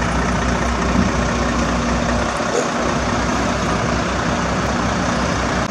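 Diesel engine of a heavy self-loader truck running steadily as the truck moves past with an excavator loaded on its bed.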